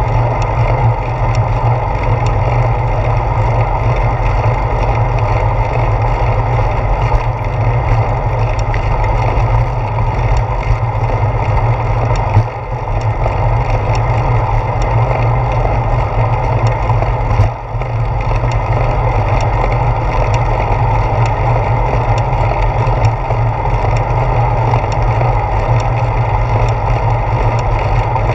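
Steady wind rush and road rumble on a handlebar-mounted GoPro Hero 4 as the bicycle rides along, with two brief dips in level around the middle.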